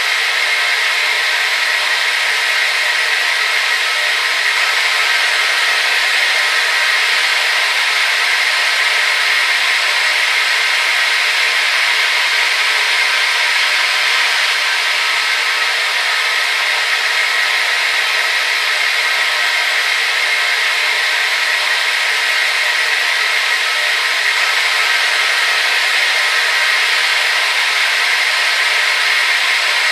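Hair dryer running continuously at a constant setting: a steady rush of blown air over its motor's whine, strongest in the middle of the range, with no change.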